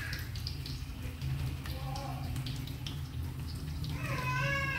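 A cat meowing: a short, faint call about two seconds in and a louder, longer one near the end, over a low steady hum.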